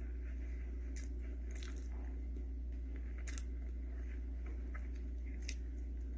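Close-up mouth sounds of eating cheesecake: soft chewing with a few sharp wet smacks and clicks, over a steady low hum.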